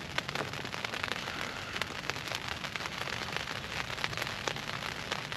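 Steady rain pattering on a tent's fabric from inside the tent: a continuous hiss with many separate sharp drop taps.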